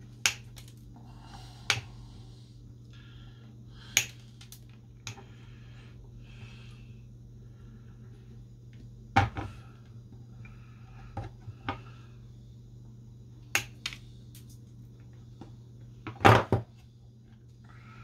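Nail clipper used as a wire cutter, snipping off component leads: a sharp snap with each cut, about nine at uneven intervals, the loudest near the end. A steady low hum runs underneath.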